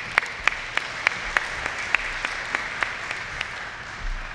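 Audience applauding, with a few sharp, close claps standing out about three times a second. The applause fades near the end.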